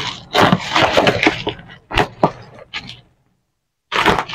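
Plastic parcel wrapping and bubble wrap crinkling and tearing as a package is ripped open by hand, with a sharp snap about two seconds in. The sound cuts out completely for about a second near the end, then the crinkling resumes.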